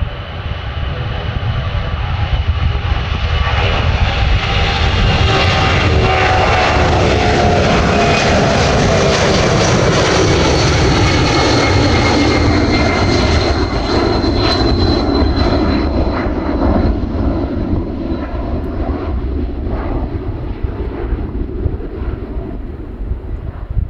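Boeing C-17 Globemaster III's four Pratt & Whitney F117 turbofans at takeoff power as it lifts off and climbs past. The noise swells over the first few seconds, holds with whining tones that slide down in pitch as the jet passes, then slowly fades.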